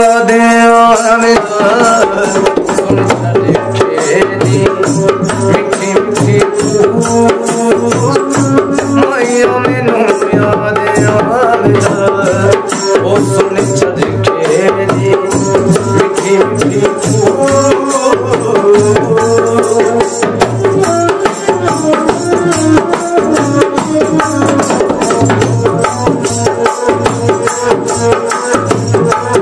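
A long-necked bowed folk fiddle plays an instrumental melody over a steady low tone, with a fast, even clicking percussion rhythm behind it.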